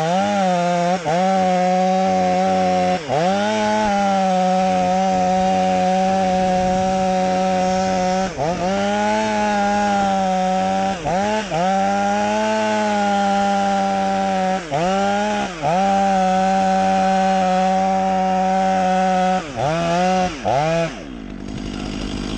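Chainsaw running at high revs, its pitch dipping briefly and recovering again and again through the run. About 21 seconds in the saw note stops, leaving a lower engine rumble.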